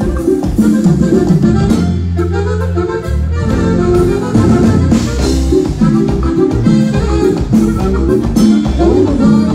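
Live regional Mexican dance band playing loud through a sound system, with accordion over a bass line and drum kit in a steady dance rhythm.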